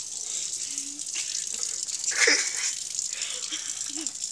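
Kitchen tap running steadily into a sink while a knife blade is washed under the stream, briefly louder about two seconds in.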